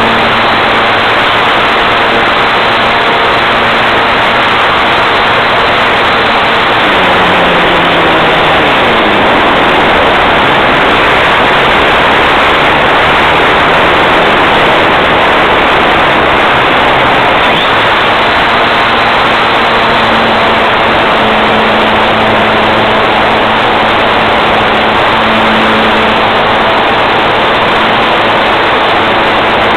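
Steady loud rush of airflow and motor noise picked up by a camera riding on a small airplane in flight, with a faint low hum from the motor and propeller that drops in pitch about eight seconds in.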